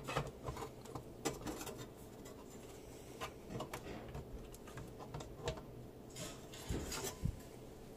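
Scattered light clicks, taps and scrapes of computer hardware being handled: a motherboard and a metal NAS case. There are a couple of louder knocks near the end.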